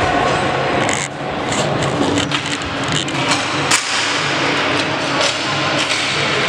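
Floor hockey play: repeated sharp clacks of hockey sticks striking the ball and each other, with the loudest hit a little past the middle.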